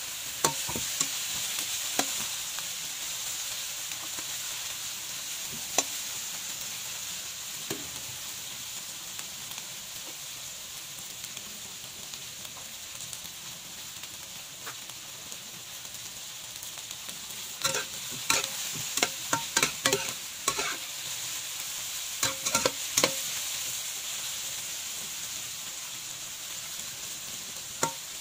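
Eggplant chunks sizzling in hot oil in a wok, with a steady hiss. A steel wok spatula clinks and scrapes against the wok now and then as the pieces are stirred, with a quick run of strokes between about 17 and 23 seconds in.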